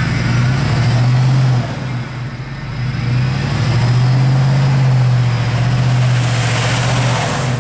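Off-road vehicle's engine revving hard and held at high revs as it tries to back up, easing off briefly about two seconds in before revving again, with a hiss building near the end.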